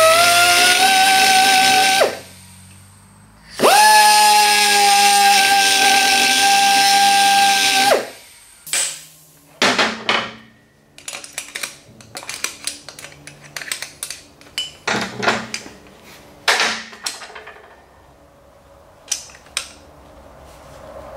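Die grinder with a carbide burr cutting out spot welds in a steady high whine. The whine cuts off about two seconds in, then runs again for about four seconds. After it comes a run of irregular sharp metal knocks and taps, thinning to a few faint clicks near the end.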